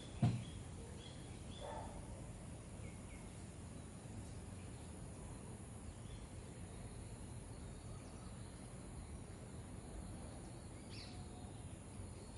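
Steady, quiet garden ambience with a few brief, faint bird chirps scattered through it. One short low thump comes just after the start and is the loudest sound.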